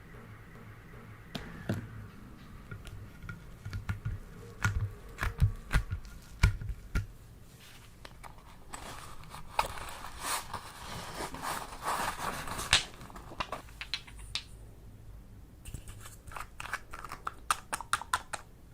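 Close handling sounds: scattered sharp clicks and taps, with a few seconds of dense crinkling and crackling in the middle and a quick run of clicks near the end.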